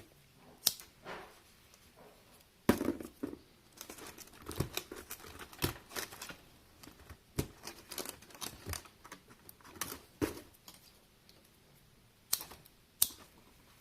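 Electrical wire being worked by hand, its insulation cut and pulled off to bare the wire: irregular clicks, snips and scrapes at uneven intervals.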